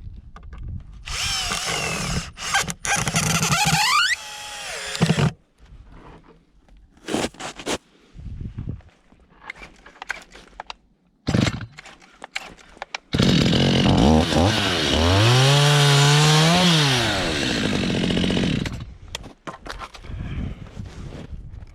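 A handheld power tool working wood in two runs, with short knocks between them. Its motor winds up to speed, holds, and then winds down near the end of the second, longer run.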